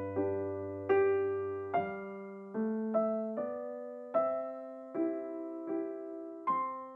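Background piano music: a slow melody of single notes, struck a little more than once a second, each ringing and fading away.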